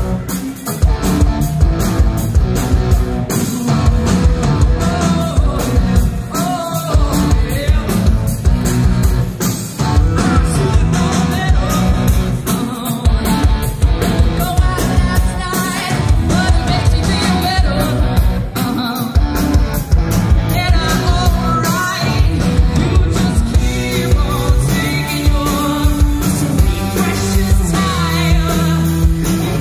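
Live pop-rock band playing an original song: a woman singing lead over a steady drum beat, electric bass guitar and keyboards.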